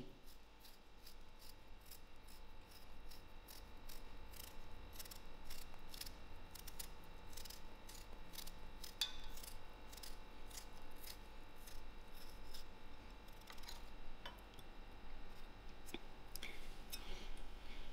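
Kitchen knife peeling a raw potato by hand: faint, short cutting strokes of the blade through the skin, a few a second.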